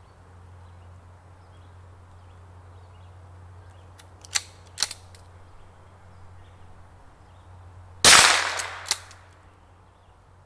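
.22 rifle firing a single shot about eight seconds in: a sharp crack with a short echoing tail. Two fainter sharp clicks come about four seconds before it, and two smaller clicks follow the shot.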